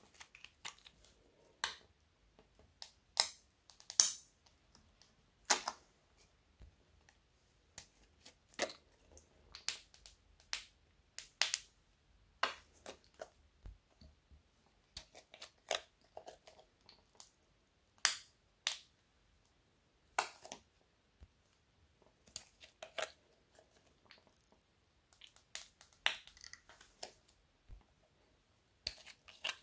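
Irregular sharp pops and clicks, scattered through with short gaps, from a plastic squeeze tube being pressed to pipe thick coloured paste onto slime. The loudest pops come about three and four seconds in.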